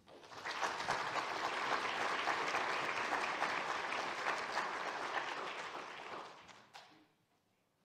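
Lecture audience applauding, a dense patter of many hands clapping that starts at once and dies away about a second before the end.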